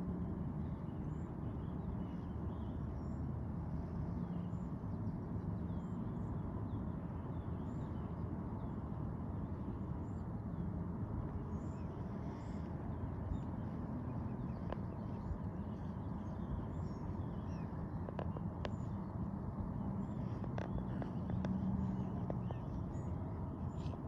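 Steady low outdoor background rumble with faint, scattered high bird chirps and a few soft clicks in the second half.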